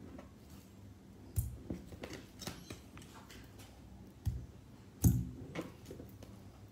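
Pieces of raw meat dropped by hand into a stainless steel bowl: three soft thuds, the loudest about five seconds in, with small clicks and rustles of handling between.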